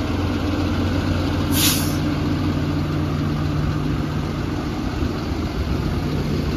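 A Kenworth T270's PACCAR diesel engine idling steadily. A short, sharp hiss of released air comes about one and a half seconds in.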